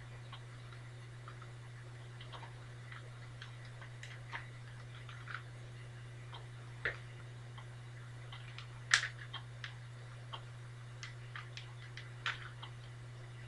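Plastic 3x3 Rubik's Cube being twisted by hand: irregular soft clicks as the layers turn, with a louder clack about nine seconds in, over a steady low hum.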